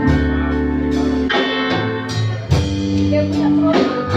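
Live blues band playing an instrumental passage between sung lines: electric guitar over bass and drums, the chords changing about every second and a bit.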